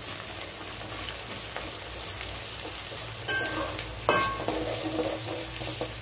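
Chopped tomatoes, onions and garlic sizzling in hot oil in an aluminium kadai as they are sautéed and stirred with a spoon. The spoon scrapes and knocks against the pan a few times about three to four seconds in.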